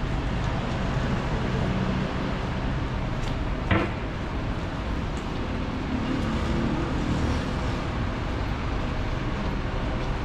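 Steady road-traffic noise of a city street, with the low rumble of vehicles. A single sharp knock cuts through about four seconds in.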